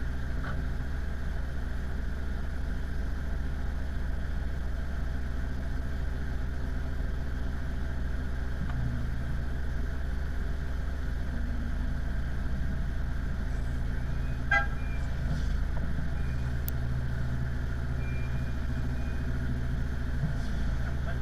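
Pushback tug's engine idling at a steady, low drone, with one brief beep about two-thirds of the way through.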